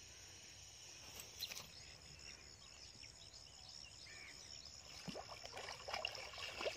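Faint, quiet waterside ambience with a steady high whine, then from about five seconds in a hooked fish splashing and thrashing at the water's surface in a series of short splashes.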